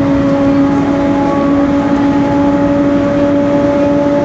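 Noisy rear differential of a BMC Belde 285CB city bus whining steadily while the bus drives, a loud held tone over the rumble of the drivetrain and road.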